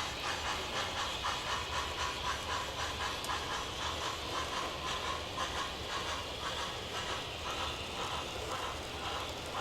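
MTH HO-scale model steam locomotive's onboard sound system playing a steady chuffing exhaust, about three chuffs a second, over the running noise of the train on the track.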